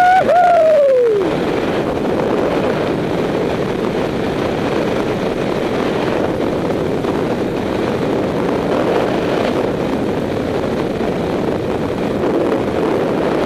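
Skis running and carving on firm groomed corduroy, a steady loud scraping hiss with swells as the turns link. At the very start a short high tone rises and falls twice, gone about a second in.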